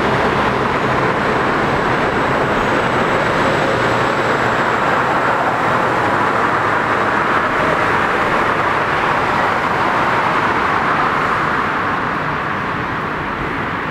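Steady roar of road traffic mixed with a Bombardier R62A subway train running away down the elevated line, easing slightly near the end.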